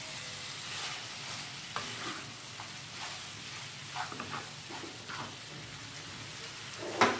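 Chicken pieces in masala frying with a steady sizzle in a non-stick pan while a wooden spatula stirs and scrapes through them, with a louder knock near the end.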